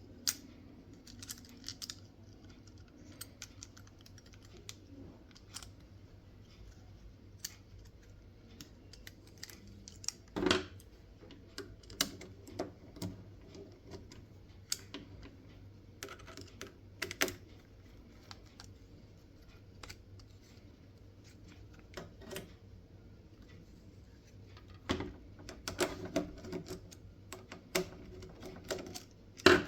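Irregular clicks, taps and knocks of small hard parts being handled, with louder clusters of clatter about a third of the way in and again near the end, over a faint steady hum.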